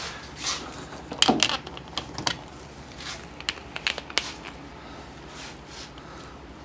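Handling noise: scattered clicks, taps and light rustling, most frequent in the first two and a half seconds and sparser afterward.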